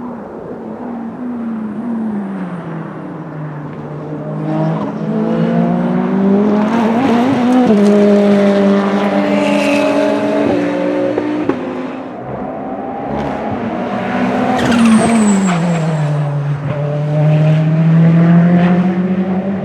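Ferrari 488 GT3 race car's twin-turbo V8 running at speed, its engine note falling and rising several times through the gears, with a sharp drop in pitch about three quarters of the way through and a steady climb near the end.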